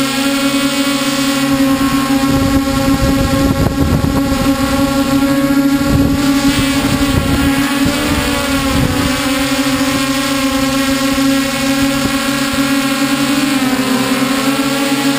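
Hexacopter drone's electric motors and propellers whirring steadily, heard from the camera mounted on the drone itself. Gusts of wind buffet the microphone from about two to nine seconds in. Near the end the pitch dips and rises as the motors change speed.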